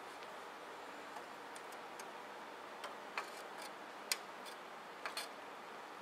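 Hot steel knife blade being quench-hardened in a pan of hydraulic oil: about ten irregular sharp ticks and pops as the oil boils against the hot steel, over a faint steady hiss.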